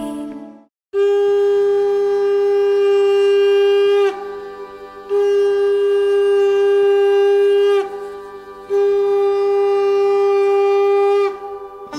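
Conch shell (shankha) blown three times, each a long steady note of about three seconds on the same pitch, dipping slightly as it ends.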